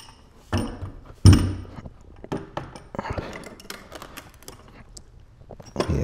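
Metal clinks, knocks and scraping of wrenches and pliers on a furnace gas valve and its gas pipe as the pipe is turned tight in the valve's threads. They come as several separate short bursts, the loudest a little over a second in.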